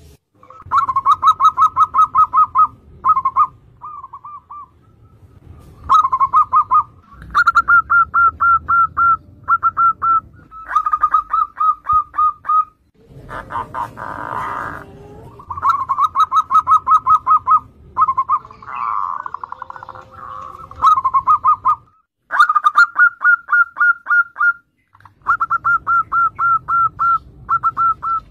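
Zebra doves (perkutut) cooing in song. Each phrase is a fast run of short, evenly spaced notes, about eight a second, lasting a second or two, and the phrases repeat over and over with brief pauses between them.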